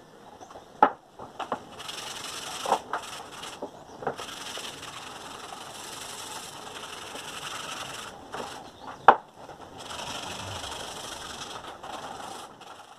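Sandpaper rubbed by hand along the steel blade of an old machete, in long rasping strokes. A few sharp knocks break in, the loudest about nine seconds in.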